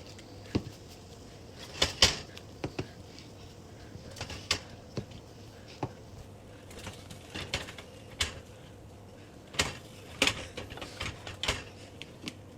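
Irregular clicks and knocks of a cooking spoon against a pot as thick gari paste is stirred, the loudest knocks about two seconds in and again near ten seconds.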